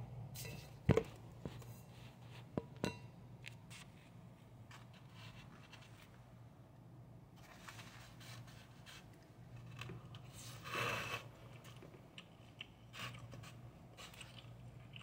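A plastic spoon scraping and tapping in a styrofoam takeout container of fried rice, with a few sharp clicks in the first three seconds and a louder scrape about eleven seconds in, along with quiet chewing.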